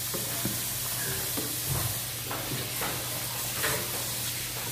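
A ladle stirring soup in a stainless steel pot, knocking lightly against the pot several times over a steady hiss.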